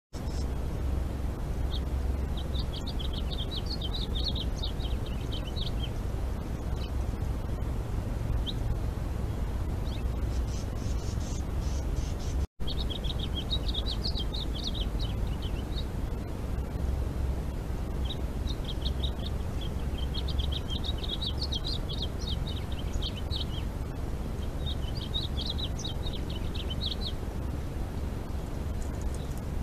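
A small bird chirping in several runs of quick, high chirps, each run lasting a few seconds, over a steady low background rumble.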